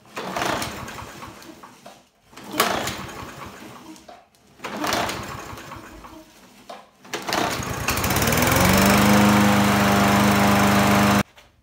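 Troy-Bilt push mower's small engine cranked by its recoil pull starter: three pulls that don't catch, then on a fourth it fires, revs up and runs steadily. This is a test start after a tune-up. The running engine cuts off suddenly near the end.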